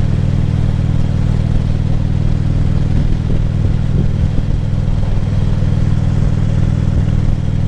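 Harley-Davidson Ultra Classic Limited V-twin engine running steadily at a constant pitch, with no revving.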